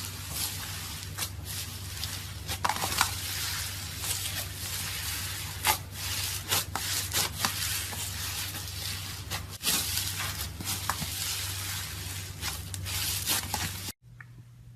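Slime being squished and worked by hand: a crackly hiss with frequent sharp pops and clicks. It cuts off suddenly near the end to something much quieter.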